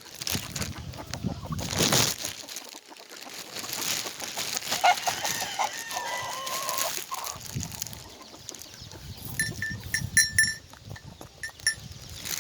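Chickens clucking, with a drawn-out call about five seconds in and a quick run of short high notes near the end.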